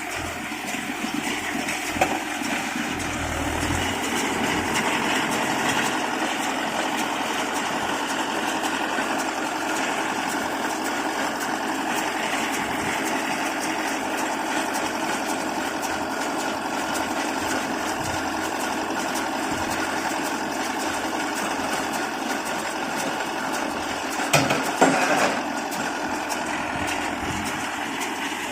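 Mahindra Yuvo 475 tractor engine running steadily while it drives a Gomadhi baler, with a few sharp knocks from the machinery near the end.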